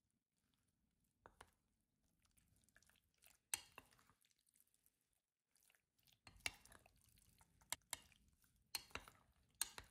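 Metal spoon mixing wet marinated chicken strips and corn flour in a glass bowl: faint squelching, with a few sharp clinks of the spoon against the glass, most of them in the second half.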